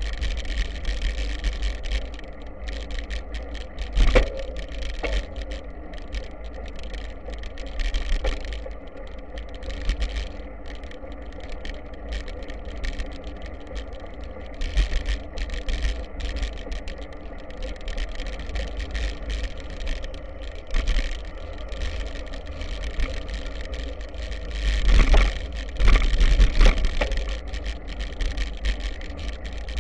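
Wind buffeting the microphone over the rolling noise of a BTWIN Triban 100 bicycle's tyres on a dirt and gravel track, with knocks and rattles from the bike over bumps. There is one sharp knock about four seconds in, and a louder run of knocks and rattles near the end.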